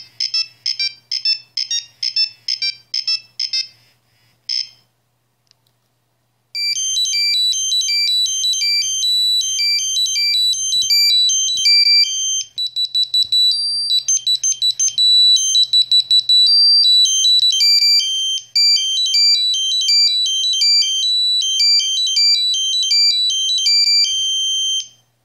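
Nokia 6210 mobile phone playing its built-in monophonic ringtones: a rapid, repeated high beeping pattern ends about four seconds in. After a short pause a second ringtone starts, a fast melody of high, thin notes with quick trills in the middle, which stops just before the end.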